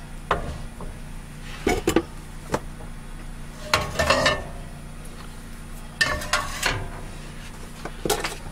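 Cookware clattering on a gas stove: a spatula stirring and knocking in a frying pan, then a second frying pan set down on the burner grate, in irregular knocks and clanks over a steady low hum.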